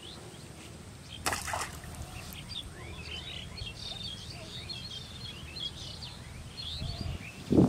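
Small birds chirping busily over a low outdoor rumble, with a brief rustling noise about a second in and a louder low thump at the very end.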